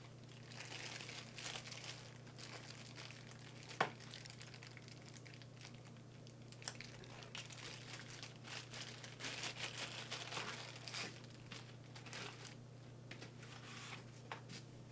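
Clear plastic packaging bag crinkling and rustling in irregular bursts as it is handled and unwrapped, with one sharp click about four seconds in, over a faint steady hum.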